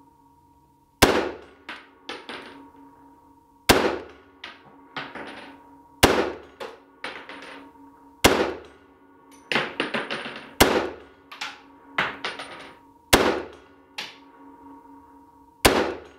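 M1 carbine in .30 Carbine firing slowly in semi-automatic: about seven sharp shots, roughly two and a half seconds apart, each followed by fainter clinks and clanks.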